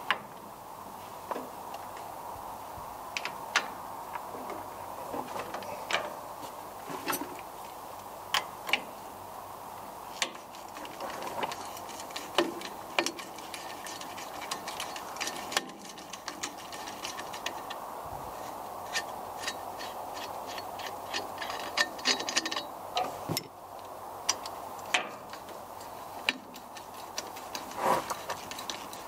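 Ratchet wrench clicking in quick runs as the 18 mm bolts of a tractor's battery bracket are undone, with scattered sharp metal clinks and knocks in between.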